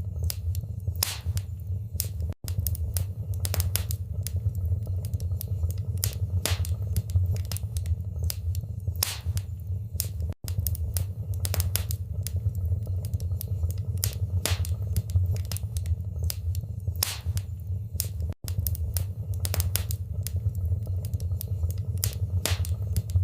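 Wood fire burning in a fireplace: irregular sharp crackles and pops over a steady low rumble of flames. Three very short dropouts come about eight seconds apart.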